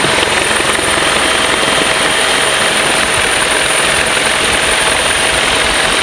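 Steady turbine whine and rotor noise of an Agusta-Bell AB 412 helicopter in flight, heard from on board.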